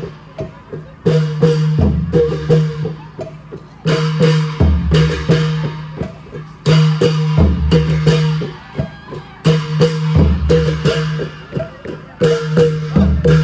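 Klong yao (Thai long drum) ensemble playing an old-style rhythm, a repeating pattern of drum strokes and pitched notes that comes round about every three seconds.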